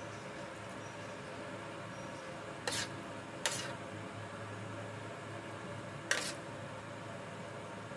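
Three short, sharp clicks of thin plastic pudding cups being knocked as cubes of grass jelly are dropped into them, over a steady low hum.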